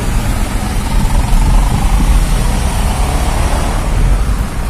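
Cabin noise of a small automatic-transmission (AMT) car driving off: a loud, steady low rumble of engine and road, with a faint engine note rising and falling about midway.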